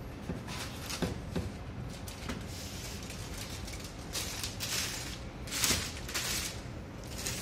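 Clear plastic bag crinkling as a laptop is handled and drawn out of its plastic sleeve, in several rustling bursts over the second half, the loudest near the end. A few light knocks come first as the laptop is lifted from its foam packing.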